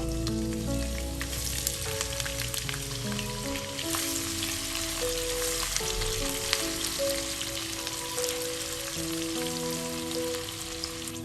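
Food sizzling and crackling as it fries in hot oil, over background music of held melody notes.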